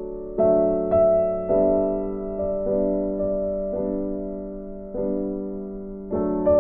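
Background piano music: gentle chords struck roughly once a second, each left to fade before the next.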